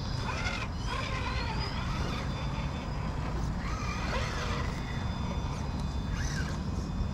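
Electric motor and gearbox of a 1/10 scale RC crawler truck whining as it climbs, the whine rising in pitch with throttle about a second in, over a steady low rumble.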